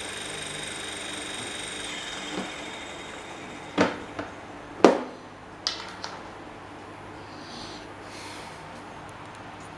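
A small electric motor runs with a steady hum and whine, then shuts off about two seconds in. A few sharp knocks and clacks follow, the loudest about five seconds in.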